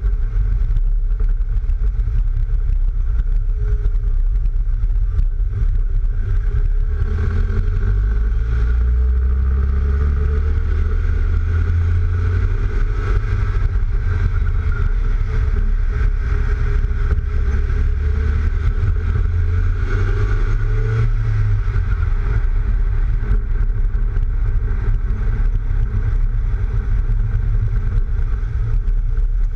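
Mk3 Volkswagen Golf on the move, heard from a camera on its flank: heavy wind buffeting on the microphone, caused by the roof racks, over engine and road noise. The engine note rises and falls a few times through the middle.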